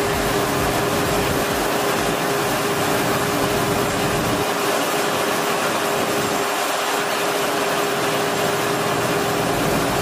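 Combine harvester and tractor machinery running steadily during grain unloading: a constant whine over an even rush, with grain pouring from the combine's unloading auger into the trailer. A low rumble drops away about halfway through.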